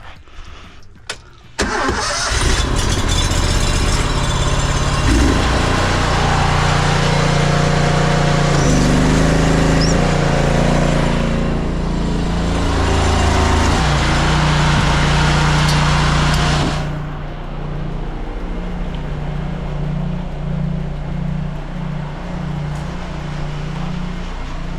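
An engine starts suddenly about one and a half seconds in and keeps running, with a loud rushing hiss over it. The hiss stops about two-thirds of the way through and the engine runs on more quietly, its pitch rising and falling.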